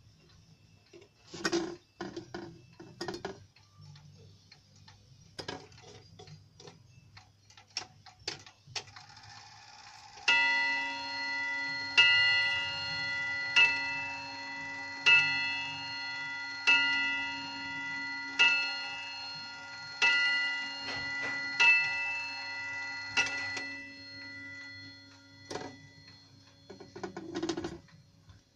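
Freshly repaired Hotta Crown Fan pendulum wall clock ticking, then striking nine: nine strikes about a second and a half apart, each ringing on and fading before the next. A few sharp clicks come from the hands being turned before the strike, and again near the end.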